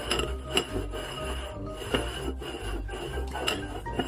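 Upturned ceramic bowls sliding and scraping across a wooden tabletop as they are shuffled, over background music with a steady low beat.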